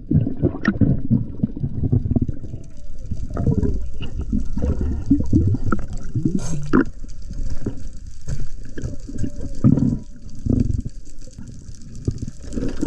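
Water sloshing and gurgling around an underwater camera as a spearfisher moves at the surface, uneven and splashy with a few brief knocks.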